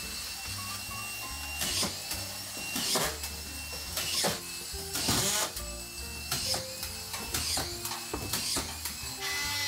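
Background music with a steady beat and a moving bass line; near the end a steady, slightly falling whine joins in.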